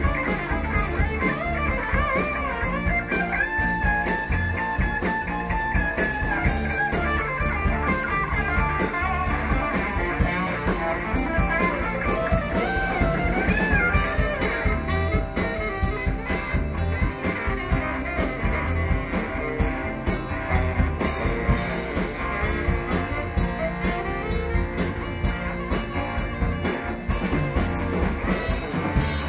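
Band music: guitar over a drum kit keeping a steady beat, with some bent notes about halfway through.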